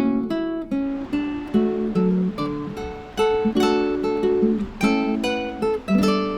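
Background music: acoustic guitar, plucked and strummed, with a note or chord about every half second.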